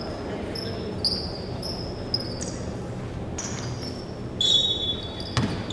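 Basketball shoes squeaking on the hardwood court in short, high-pitched chirps, one longer and louder about four and a half seconds in, with a single sharp knock shortly before the end.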